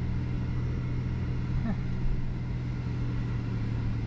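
Car driving, its steady low engine and road hum heard from inside the cabin.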